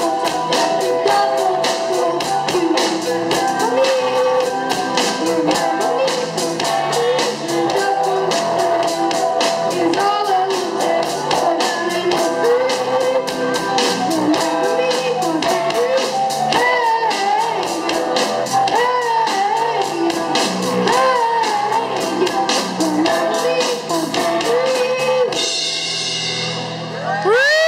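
Live amateur rock band performing: drum kit, electric guitars, two Yamaha keyboards and a boy singing lead. Near the end the drumming stops and the band holds a final chord.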